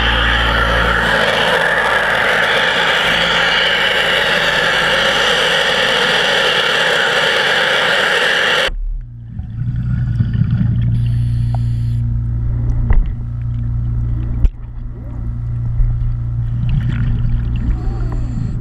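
Underwater pressure-washer jet from a diver's lance, hissing steadily, then cutting off suddenly about nine seconds in. What remains is a low steady hum with a few clicks.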